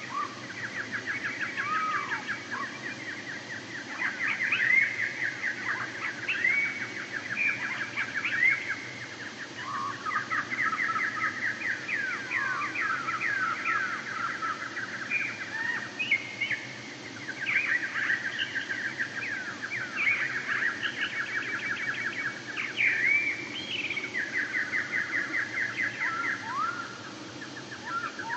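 Birds singing and calling: fast chattering trills overlap with repeated swooping whistled notes, going on throughout.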